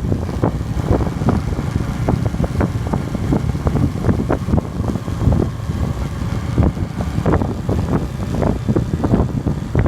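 Wind buffeting the microphone on a downhill ride, a loud steady rumble, with frequent short knocks and rattles.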